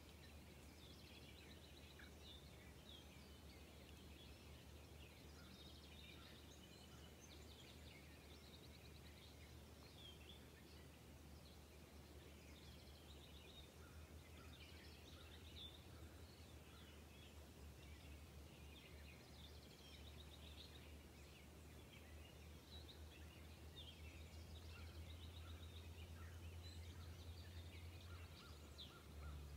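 Faint chirps and short trills of small birds in the background, over a low steady hum.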